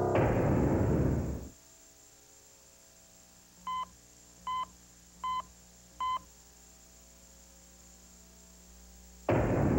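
Four short electronic beeps from a cardiac heart monitor, about one every three-quarters of a second, each marking a heartbeat. Before them a loud burst of noise fades away over about a second and a half, and another such burst starts near the end; these bursts are the loudest sounds.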